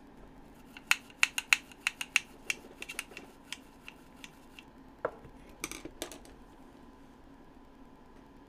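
Small hard makeup containers clicking and clattering together as they are rummaged through by hand. There is a quick run of sharp clicks in the first few seconds, then a few more about five seconds in.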